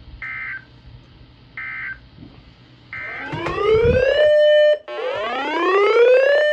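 Three short bursts of Emergency Alert System data tones about a second apart: the end-of-message signal. Then a louder electronic siren-like alert tone rises in pitch, holds, cuts off and starts over, as the alert signal ahead of the next warning.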